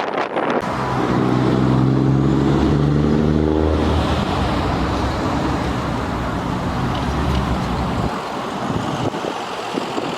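A motor vehicle drives past: a steady engine hum with tyre noise swells over the first couple of seconds and fades out about eight seconds in, over gusty wind noise.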